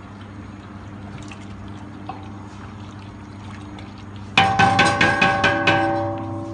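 Soup being stirred in a large stainless-steel stockpot with a wooden spoon, over a steady low hum. About four seconds in, the wooden spoon is knocked rapidly against the pot, about eight quick knocks in a second and a half, and the steel pot rings after them.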